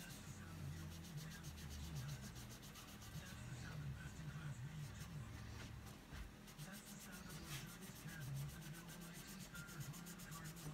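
A folded cotton cloth patch rubbed back and forth in quick, even strokes on a small rust-browned steel gun part, faint and steady. This is buffing off the loose layer of surface rust while leaving the browning.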